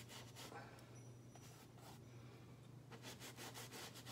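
Faint oil-paint brush strokes scrubbing on canvas, in short clusters near the start and again about three seconds in, over a low steady hum.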